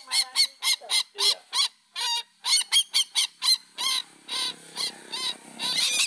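Lure recording of Papuan ruak-ruak (sintar) rail calls: a fast run of short, repeated call notes, about five a second, with a short break about two seconds in. A lower buzzing sound joins under the calls about four seconds in.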